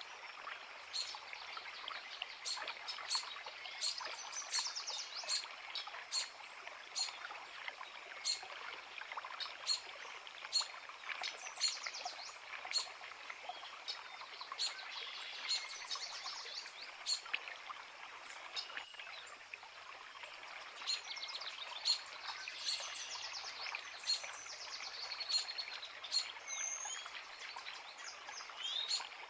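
A creek running steadily with birds singing over it: short high chirps repeated about once a second, and several bursts of rapid twittering.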